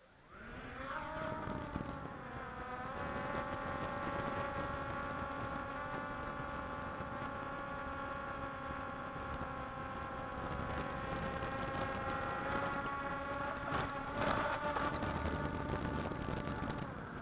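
Walkera Scout X4 quadcopter's motors and propellers spinning up from rest about half a second in, the whine rising in pitch and settling within a few seconds into a steady buzzing hum as it lifts off and flies low. A brief burst of noise about fourteen seconds in.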